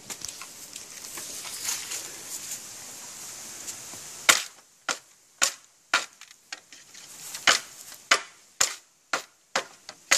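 Green bamboo pole being split by hand: a run of sharp cracks, about two a second, starting about four seconds in, after a steady hiss.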